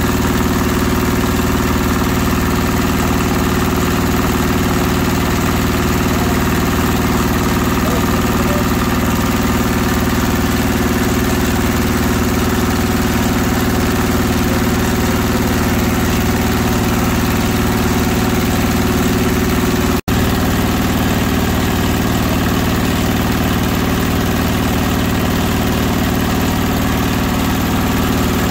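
Belt-driven cast-iron meat mincer running steadily under its drive motor, a constant mechanical hum with the belt and pulley turning as meat is ground. The sound drops out for an instant about two-thirds of the way through.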